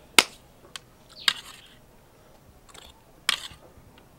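Eating utensils clinking and scraping against a plate: a handful of sharp clinks, each with a short scrape after it, the loudest right at the start.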